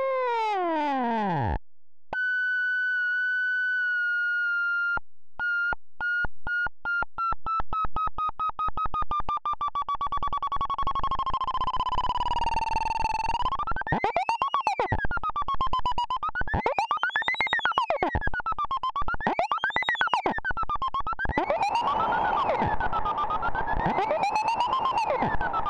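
iAbyssal iOS photo-synthesizer playing a single oscillator tone. It glides down and cuts off, then a steady tone sets in that is chopped by pulses that grow faster, and from about halfway its pitch swoops up and down in slow waves as a low-frequency oscillator modulates it. Near the end white noise from the app's noise generator is mixed in.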